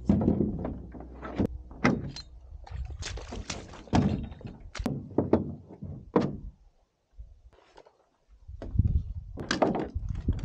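Hollow thunks and knocks of gear and packs against a canoe hull as it is loaded at the water's edge, with rustling and scuffing between them. The knocks come in an irregular string, with a brief quiet pause about seven seconds in.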